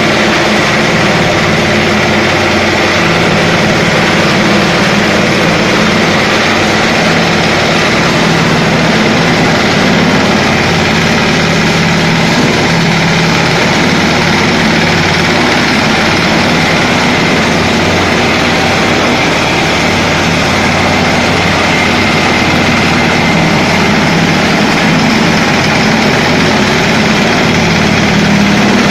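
Engine of a 5 hp concrete groove cutting machine running steadily, with a faint high whine over it.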